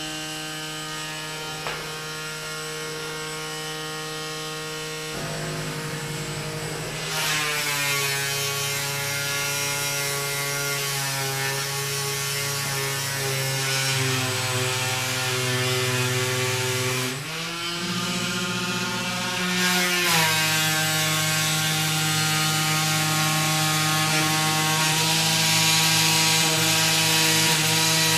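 DIY benchtop CNC machine running its first cut in 5 mm foam board: a steady multi-tone motor whine that jumps to a new pitch several times as the gantry changes speed and direction, over a hissing noise that grows louder about seven seconds in and again about twenty seconds in.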